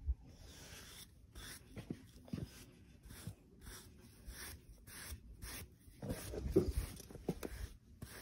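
Grooming brush swept over a horse's coat in short repeated strokes, about two a second. A louder low rumble comes about six seconds in.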